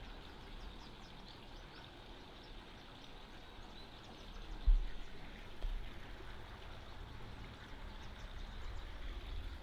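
Outdoor ambience: a steady soft rush like flowing water, with faint bird chirps. A low thump hits the microphone a little under five seconds in.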